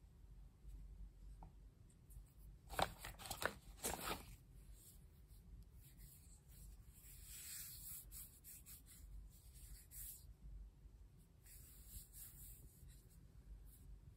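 Faint handling of a Samsung case on a Galaxy S23 phone: a quick run of taps and clicks about three seconds in as the case is pressed on, then soft rubbing of fingers over the case in several short stretches.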